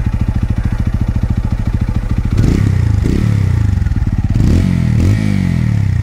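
TVS Apache RTR 200 4V's single-cylinder engine, fully warmed up, idling through an aftermarket Akrapovic-branded silencer, then revved in several quick blips from about two seconds in before dropping back to idle.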